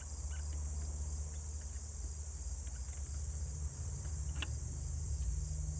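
A steady high-pitched background whine and low hum, with a few faint light clicks of a steel planer blade being lifted off the cutterhead, the clearest about four seconds in.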